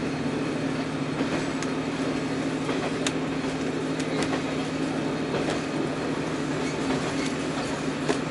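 Diesel railcar heard from inside while running along the line: a steady engine and running drone with a low hum, rail noise, and a few sharp, irregular clicks from the wheels and track.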